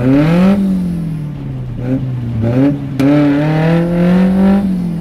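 A 4x4's engine revs in repeated surges, its pitch climbing and falling, as the vehicle tries to reverse out of deep mud and stays stuck.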